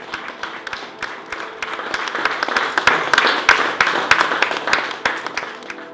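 Small audience applauding: many hands clapping, swelling to a peak about halfway through and then dying away near the end.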